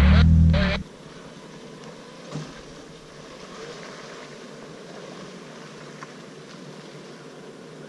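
A loud rumble and rush of noise for under a second, cutting off suddenly. What follows is the faint steady running of a Jeep Wrangler's engine as it crawls along a dirt trail.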